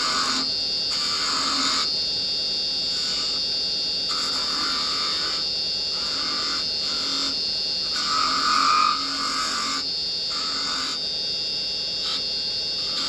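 Wood lathe running as a carbide chisel cuts a spindle-turned finial, the cutting noise coming and going in short passes about once a second over a steady high whine, loudest a little past the middle. The wood being turned is an unusually noisy one to cut.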